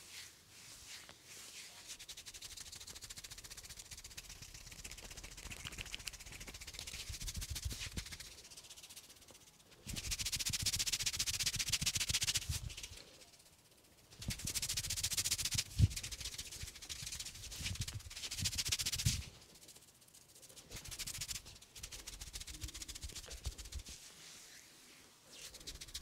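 Fingers rubbing and working through a man's hair and scalp during a head massage, making a dry, shaker-like rustling with soft thumps under it. It comes in long stretches that grow loudest about ten seconds in and again from about fourteen to nineteen seconds in.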